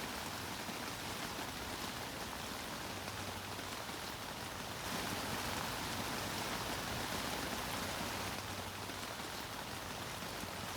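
Steady rain, swelling a little louder for a few seconds in the middle.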